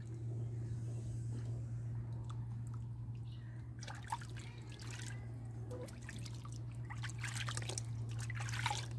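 Water sloshing, splashing and trickling in a plastic basin as hands scoop it over a baby monkey being bathed. The splashes come around four seconds in and again, more strongly, near the end, over a steady low hum.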